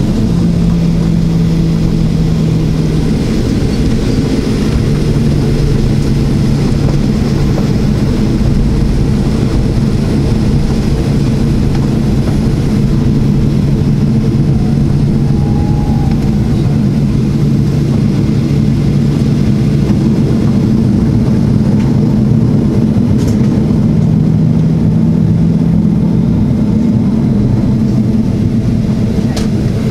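Cabin noise inside a Boeing 737-800 taxiing on the ground: its CFM56-7B turbofan engines running at low taxi power, a steady loud drone with a low hum that shifts slightly in pitch.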